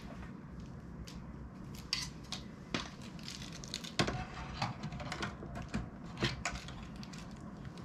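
Scattered light plastic clicks and knocks of a corded computer mouse's cable being unwound and its USB plug pushed into the back of a mini desktop computer.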